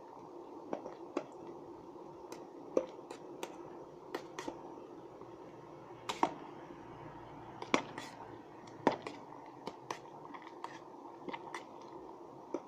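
Water boiling in an electric kettle with noodles cooking in it: a steady bubbling hiss broken by irregular sharp pops and ticks, a few of them louder.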